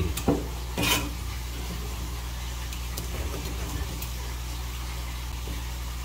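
Steady low electrical hum with an even background hiss. A couple of short clicks sound in the first second as a knife works at a scallop shell.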